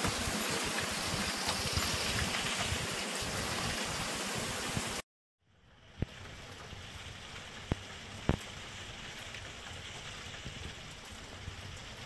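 Steady hiss of rain, louder for the first five seconds with some low rumble. It drops out briefly, then returns quieter with a few sharp ticks.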